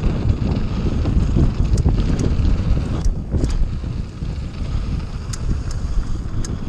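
Mountain bike running fast down a dirt trail: wind buffeting an action camera's microphone over a steady rumble of tyres on the ground, with scattered sharp clicks and rattles from the bike.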